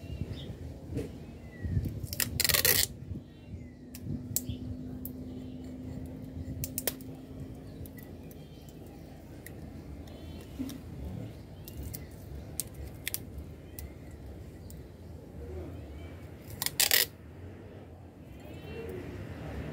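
Clear adhesive tape pulled off its roll in two short, loud rips, one about two seconds in and one near the end, with light clicks and rustles of handling the tape and a glass cup between them.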